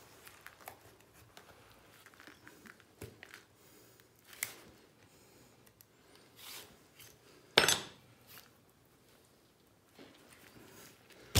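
Objects being handled: scattered light clicks and knocks, with one sharp, louder knock about two-thirds of the way through.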